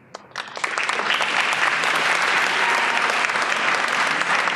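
Audience applauding: a few scattered claps at first, then within about a second the crowd joins in, with steady loud clapping.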